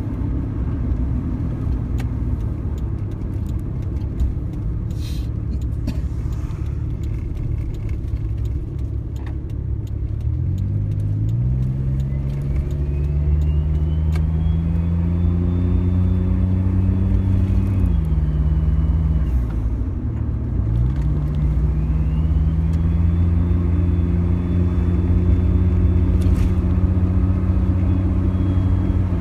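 Suzuki Jimny engine running as the car is driven: the engine note climbs as it accelerates about a third of the way in, drops back briefly around two-thirds, then climbs again and holds steady. A faint high whine rises and falls with speed.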